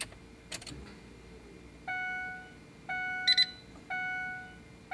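Ford Super Duty dashboard warning chime dinging about once a second after the key is turned on, each ding a bell-like tone that fades out, with a quick high double beep between two of them. A couple of sharp clicks come just before the chime starts.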